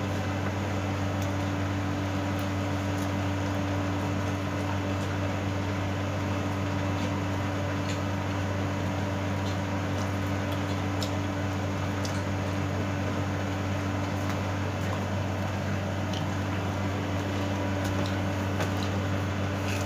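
Steady low machine hum of a room appliance, with faint scattered clicks and smacks of chewing and handling food with the fingers.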